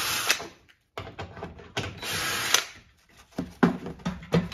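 Handheld cordless driver with a 10 mm socket spinning bolts out of a plastic under-engine cover, running in a few short bursts with clicks and knocks between them.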